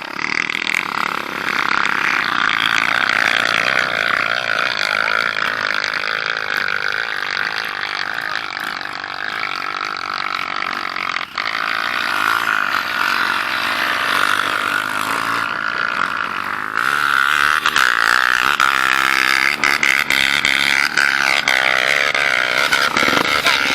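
Off-road motorcycle engine running, its revs rising and falling.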